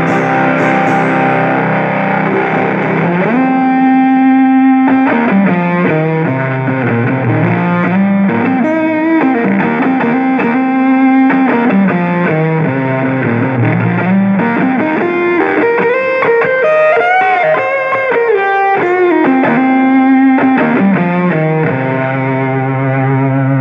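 Squier Stratocaster played through fuzz and overdrive pedals into a Fender Champion 20 amp, with a distorted tone. A sustained chord rings, then a lead line with many string bends, ending on sustained chords.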